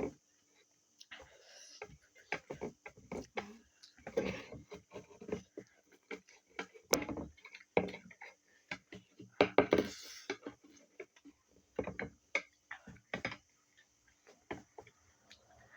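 Close-miked eating of spicy noodles: irregular wet smacks, clicks and short slurps of chewing and slurping, with two longer slurps about four and ten seconds in.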